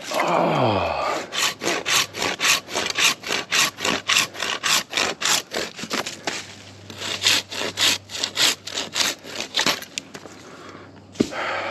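Hand pruning saw cutting through a branch in quick, even strokes, about four a second. It opens with a brief falling whine, and there is a short scrape near the end.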